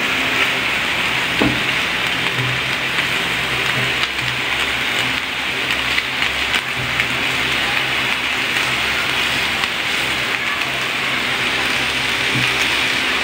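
Meat slices and eggplant sizzling steadily on the hot plate of an Imarflex electric griller, with a few faint clicks as chopsticks turn the meat.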